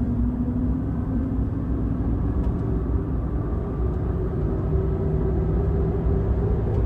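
Cabin road noise from a car cruising at highway speed: a steady low rumble of tyres on concrete pavement, with a faint engine hum.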